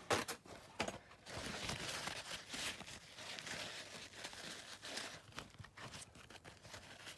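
Faint rustling with scattered small clicks: hands handling the diecast model's small windscreen after it is taken out of the ultrasonic cleaner.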